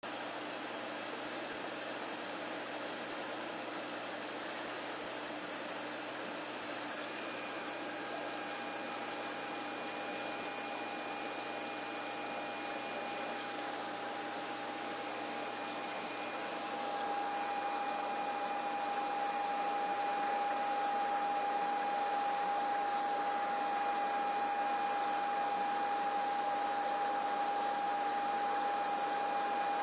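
Steady hum and water hiss of reef-aquarium circulation pumps, with a steady whine that grows louder a little over halfway through.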